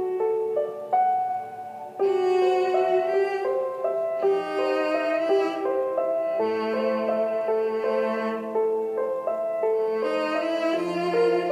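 Instrumental background music: piano notes, joined about two seconds in by a louder bowed-string melody, likely violin, over held lower notes.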